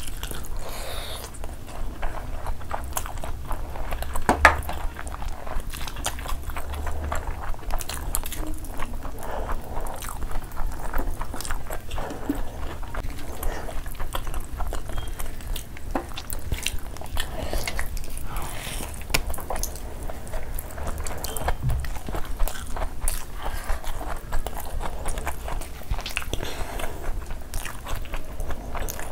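Close-miked chewing and biting of mutton curry and rice eaten by hand, with frequent short clicks from the mouths, the sharpest about four seconds in.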